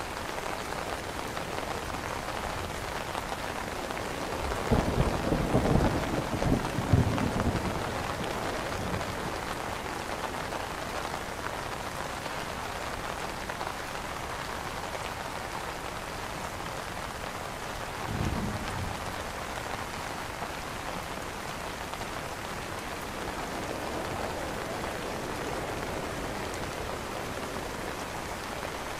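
Steady rain falling on an umbrella canopy. A low rumble of thunder swells about five seconds in and lasts around three seconds, and a shorter, fainter rumble comes about eighteen seconds in.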